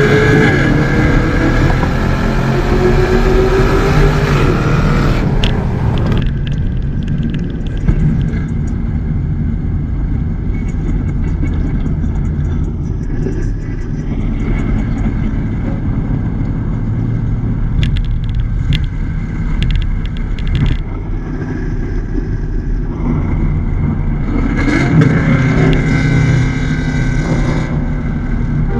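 Holden Commodore's engine and exhaust while driving: the revs climb in the first few seconds, then it settles to a steady low cruising rumble, and the revs pick up again near the end.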